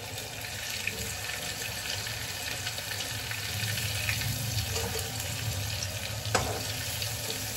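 Paneer cubes sizzling in hot oil in a kadhai as a metal ladle scoops them out, with a few clinks of the ladle against the pan and one sharper knock about six seconds in.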